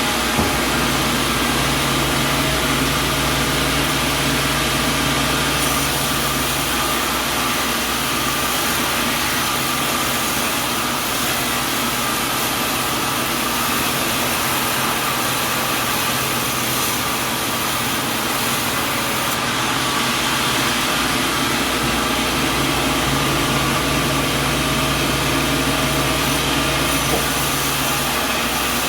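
Sawmill machinery running steadily: a constant mechanical noise with a low motor hum that drops out briefly twice and comes back.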